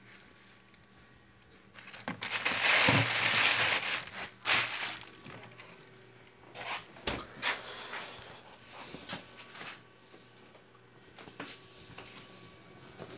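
A loud burst of crinkling, rustling noise lasting about three seconds, starting about two seconds in, followed by scattered clicks and softer rustles.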